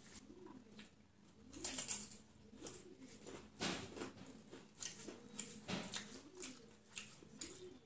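Close-up eating sounds: sharp, irregular crackles of crisp papad being crushed into rice with the fingers and chewed, loudest about two and four seconds in. Faint short low rising-and-falling coos recur about once a second behind them.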